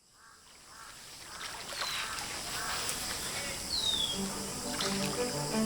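Outdoor ambience fading in with birds chirping, several short calls sliding downward in pitch. From about four seconds in, low sustained bowed-string music begins underneath.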